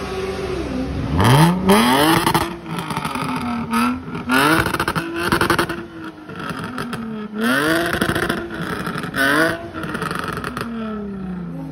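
Jaguar F-Type sports car's engine revved hard about four times in a row, each rev climbing sharply in pitch and falling back, with a rattling edge at the peaks. It drops back toward idle near the end.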